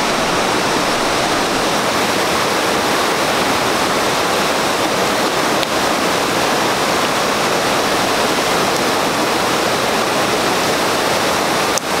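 Steady rush of a rocky mountain river tumbling over a small waterfall, an even, unbroken sound of water.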